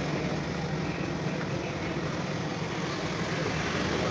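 Street traffic: motor scooters riding past, a steady hum of small engines and road noise.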